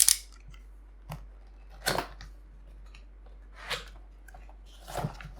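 Handling noises as a mechanical keyboard and its packaging are moved: a sharp knock at the start, then a few scattered short rustles and clacks about a second or two apart.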